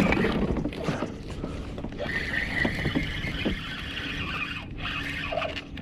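Fishing reel whirring and clicking while a hooked fish is fought, with a steady low wind rumble on the microphone. A few sharp clicks come in the first half, and a steady high whir runs through the middle.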